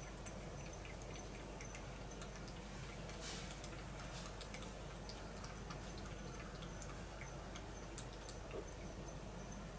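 Domestic cat lapping water from a bowl: faint, irregular soft clicks and drips.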